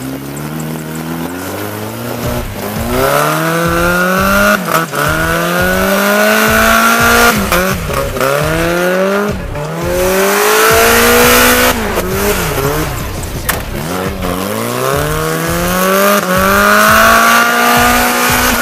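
Suzuki 4x4's engine revving hard over and over as it spins in loose sand, each time climbing in pitch, holding, then falling back, about six times in a row.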